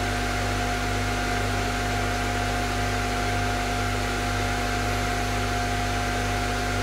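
Steady electrical hum and whirring noise from car-audio amplifier test-bench equipment running under a sine-wave load, with several constant tones over an even wash of noise.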